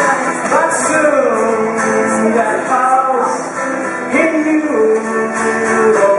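A male voice singing long held notes that slide between pitches, over a strummed acoustic guitar.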